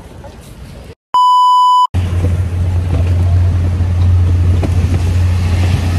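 A loud, steady single-pitched censor bleep lasting under a second, about a second in, set between brief gaps of silence. Then comes the steady low rumble of riding in an open-sided tricycle.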